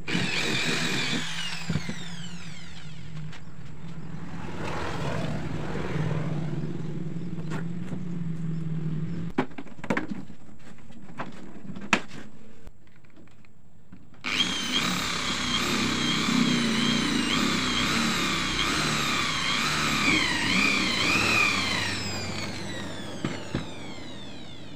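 Electric power tool cutting plywood in passes, its whine wavering up and down as the load changes. There is a short stop about halfway through, and the motor winds down near the end.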